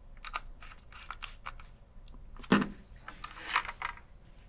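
A run of small, sharp clicks and taps, with one louder knock about two and a half seconds in and a short scraping stretch shortly after.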